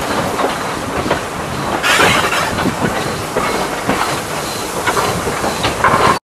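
Running noise of the 0-4-0T tank steam locomotive Jeddo Coal #85 rolling along the track, heard from on board: a steady rattle with irregular clicks and clanks from the wheels on the rails. It cuts off suddenly near the end.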